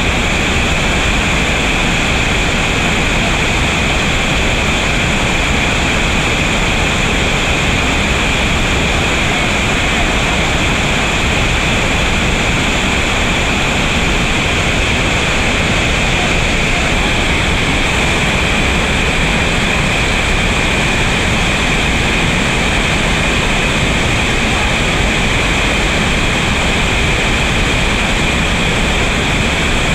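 Steady rushing of a river waterfall and the churning whitewater at its foot.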